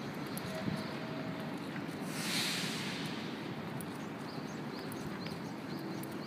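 Outdoor city ambience during a walk: a steady background rush, with a brief hiss about two seconds in.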